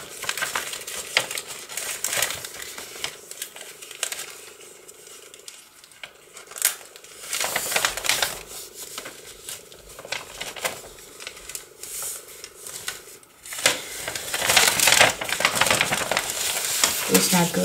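Sheets of paper rustling and crinkling as they are handled, folded and pressed flat by hand, in irregular bursts with a few light taps, busiest near the end.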